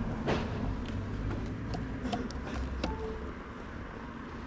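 Low, steady rumble of vehicle traffic, with a few light clicks and knocks scattered through it.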